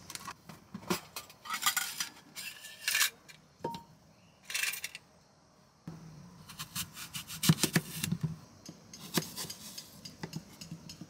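A paper carton being opened and handled, with rustling and clicks. From about six seconds in, a paring knife slices an apple on a cutting board, with repeated sharp knocks of the blade against the board.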